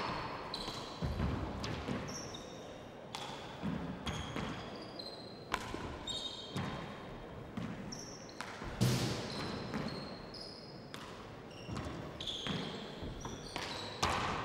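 Handball rally: the rubber handball smacking off the court walls and the players' hands in irregular sharp cracks, about one a second, with the loudest near the middle, and trainers squeaking on the hardwood court floor between the strikes.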